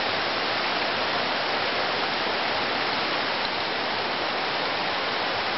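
River water rushing: a loud, steady, even rush of water without any pause or change.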